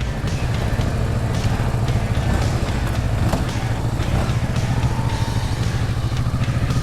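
Motorcycle engine running steadily at low revs with an even rapid pulse, heard through a helmet microphone.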